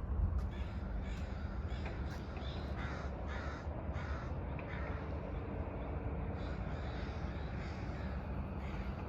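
A flock of birds calling over one another in short, repeated calls, several every second, over a steady low rumble.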